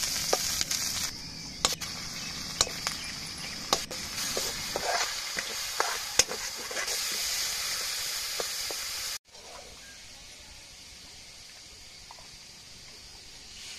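Chopped onions sizzling in hot oil in a metal kadhai, with a metal spoon clicking and scraping against the pan as they are stirred. About nine seconds in, the sound drops suddenly to a much quieter, steady hiss.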